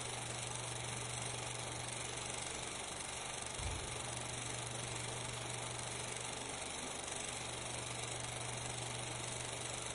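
Steady hiss with a constant low hum and no other sound of its own, apart from one brief low thump about three and a half seconds in.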